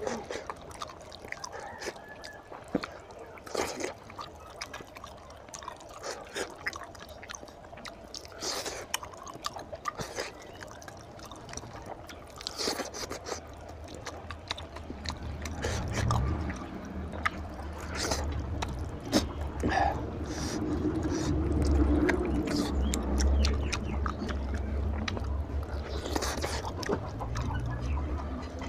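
Wet, sticky clicks and squelches of oily fingers pulling meat off a spicy mutton-head curry, with chewing sounds. A low rumble comes in about halfway and stays to the end.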